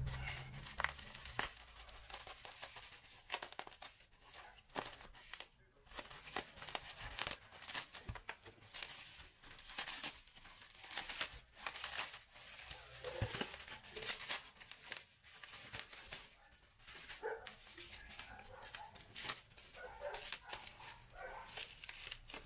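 Plastic bag and bubble wrap crinkling and tearing as a hand unwraps a packaged circuit board, with irregular crackles throughout.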